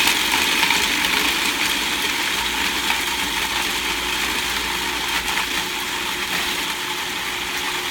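Electric food processor motor running steadily, its blades grinding chickpeas, candied pecans, garlic and jalapeño into hummus; the sound eases a little in level as the mixture comes together.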